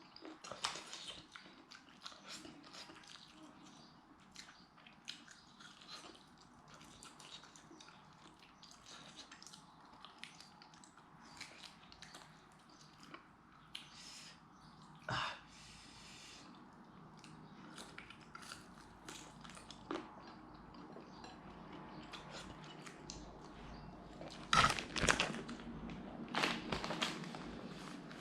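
A person chewing and biting into roast chicken, with many small irregular wet clicks and crunches, and a few louder bites or knocks near the end.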